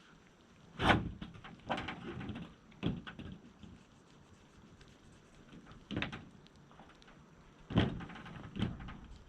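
A series of sharp knocks and thuds with short rattling clatter, about six in all, the loudest about a second in: a corrugated polycarbonate roofing panel being handled and set against the work.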